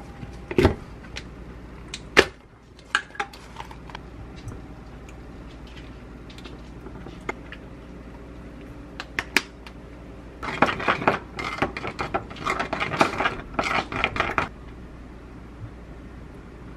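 Kitchen handling sounds: a few separate knocks and clicks as a yogurt tub, a bowl and a spoon are set down and handled, the sharpest about two seconds in. Then about four seconds of rapid clinking and scraping from a wooden spoon stirring yogurt in a ceramic bowl.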